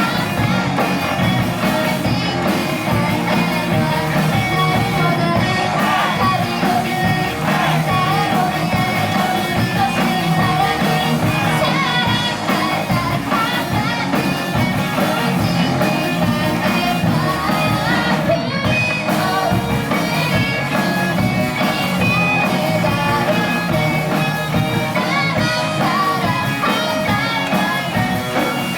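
A student rock band playing live, with a singer over the band.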